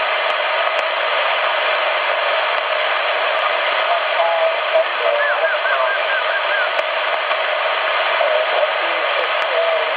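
CRT SS 9900 CB transceiver receiving single sideband, its speaker giving a steady hiss of band noise. Faint, warbling sideband voices come and go under the static around the middle.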